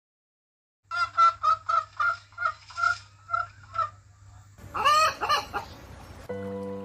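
A chicken clucking in a quick series of about a dozen clucks, then a short, louder call that rises and falls in pitch. Music starts near the end.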